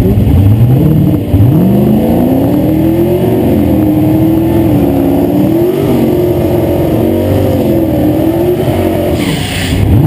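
Car engine revving up twice in the first couple of seconds, then held at raised revs with the pitch slowly rising and falling. A short hissing noise comes in about nine seconds in.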